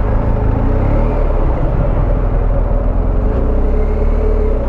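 BMW R1250GS Rallye's boxer-twin engine running at low speed in slow traffic, its pitch rising and falling slightly as the throttle is fed, over a steady rumble of the traffic alongside.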